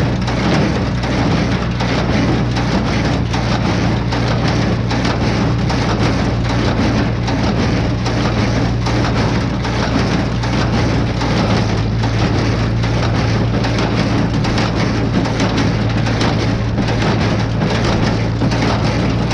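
Tractor running a hay baler: a steady engine hum with a dense, continuous clatter and crunch of machinery working.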